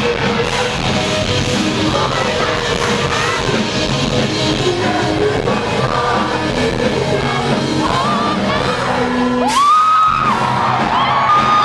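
Rock band playing live: electric guitar, drums and lead vocals with shouting. About ten seconds in the band thins out and a voice sings two long, loud held notes.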